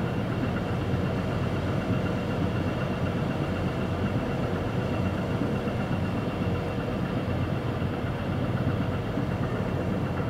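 Coastal container ship's diesel engine running steadily as the ship manoeuvres alongside a quay to berth, a low, even rumble.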